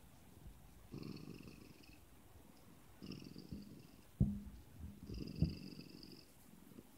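Siamese cat purring while being stroked, the purr rising and falling in soft pulses with each breath, about every two seconds. Two brief louder sounds break in about four and five seconds in.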